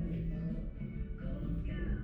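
Background music with a singing voice, playing steadily.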